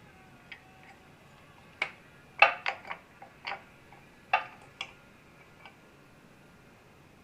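Irregular sharp metallic clinks and taps of tools and engine parts being handled during disassembly, loudest in a quick cluster about two and a half seconds in, with a few more a couple of seconds later.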